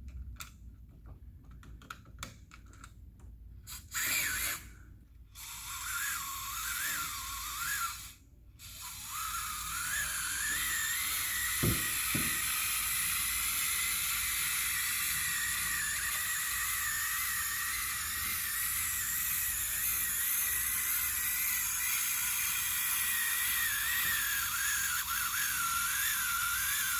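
A few light clicks and rattles of plastic toy parts being handled and fitted together. From about five seconds in, a steady hiss with a faint warbling tone takes over and runs on.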